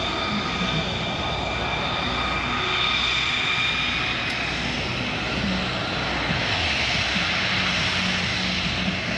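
Boeing C-17 Globemaster III's four turbofan jet engines running overhead, a steady rush with a high whine of several held tones, the hiss growing brighter in the second half.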